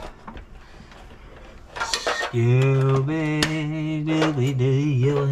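A man singing a wordless tune in long held notes that step up and down in pitch, starting about two seconds in and the loudest sound here. Before it, light metal clicks and scrapes as a sheet-metal cover plate and its screw are handled on top of an electric water heater.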